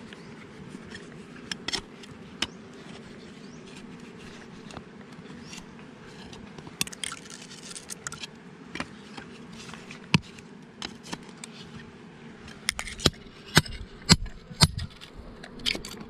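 A steel knife blade scraping and knocking against rock and dry soil, with scattered clinks and a run of louder knocks near the end, over the steady drone of honeybees buzzing around their nest.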